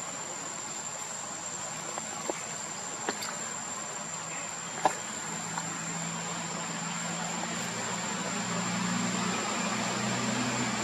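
Outdoor ambience: a steady high-pitched insect drone over a background hiss, with a few faint sharp clicks in the first half. A low engine hum fades in about halfway through and grows louder.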